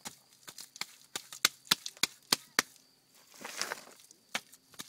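Bare hands slapping and patting a wet earth-and-straw mix into place on a low wall: a run of sharp slaps, several a second, with a brief rubbing, smearing sound a little after the middle.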